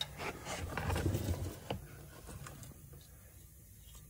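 Hands unplugging the electrical connector from the third-clutch pressure switch on a Honda Ridgeline's automatic transmission: rustling with a few small clicks and knocks, busiest in the first two seconds, then dying down to faint handling noise.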